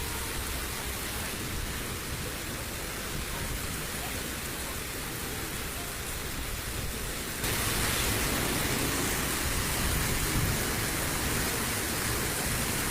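Steady rushing noise of storm water, a dense hiss with no distinct events. It turns louder and brighter about seven seconds in.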